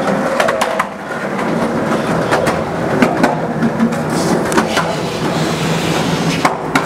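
Skateboard wheels rolling over a concrete walkway: a steady rumble, broken by sharp clacks every second or so as the wheels cross seams in the concrete.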